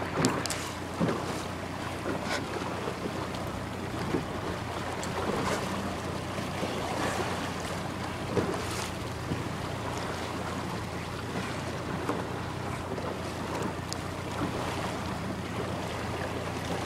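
Wind buffeting the microphone over small waves slapping against a boat's hull, with occasional sharper splashes and a low steady hum underneath.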